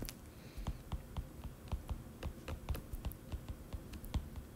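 Stylus tip tapping and clicking on a tablet's glass screen during handwriting: an irregular run of light clicks, several a second.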